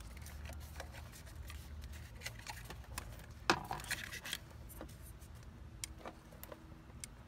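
Hands handling a plastic fuse block housing and wiring harness connectors: faint rubbing and scraping with scattered small plastic clicks, and one sharper click about halfway through.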